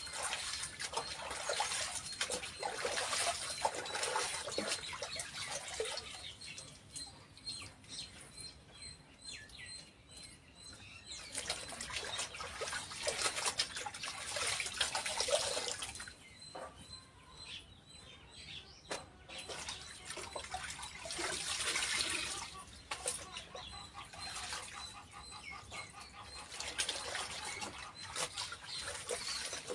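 Clothes being hand-washed in a plastic basin of water: wet cloth swished, squeezed and rubbed, coming in bursts with quieter stretches between.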